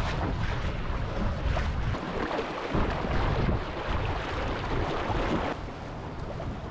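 Wind buffeting the microphone and water rushing and slapping along the hull of an inflatable dinghy under way, a steady rumbling noise that drops a little near the end.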